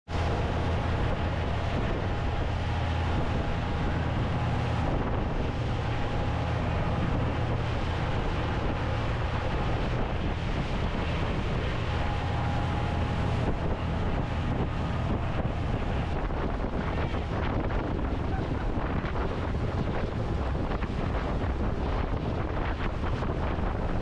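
Wind buffeting the microphone over rushing water and the steady low drone of a Honda 115 four-stroke outboard running at speed. The low drone eases about halfway through while the wind and water carry on.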